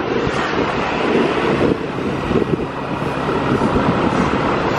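Yamaha NMAX scooter being ridden, its engine running steadily under heavy wind rumble on the microphone.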